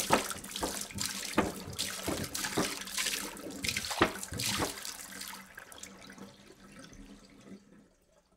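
Water pouring from a jug in a splashing stream, thinning out about five seconds in and fading to a few last drips.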